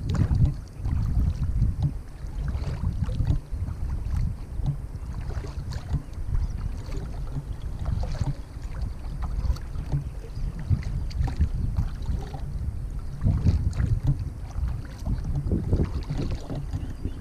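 Kayak paddle strokes splashing and dripping, with water washing along the hull of a Lettmann Streamliner sea kayak, over a steady low rumble of wind on the microphone.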